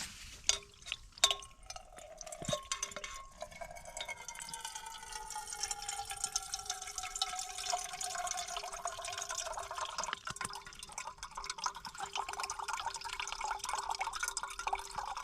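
Water trickling out of a water purifier into a container, with a ringing tone that slowly falls in pitch. There are a few handling clicks near the start.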